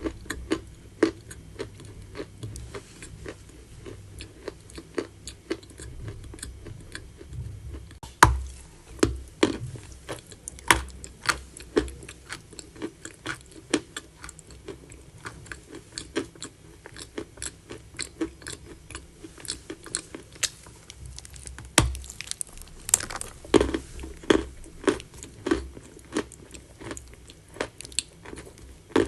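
Chalk being bitten and chewed close to the microphone: a steady run of dry crunches and crackles, a few every second, with several sharp, louder bites standing out.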